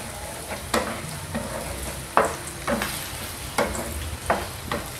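Minced garlic sizzling in hot oil in a small frying pan, stirred with a wooden spatula that scrapes across the pan in repeated strokes, a little more than one a second, as the garlic browns.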